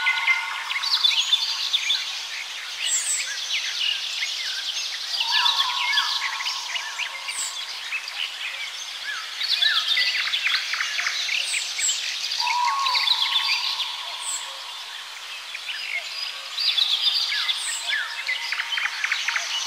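Several songbirds singing over one another in a steady chorus of chirps, trills and whistled phrases.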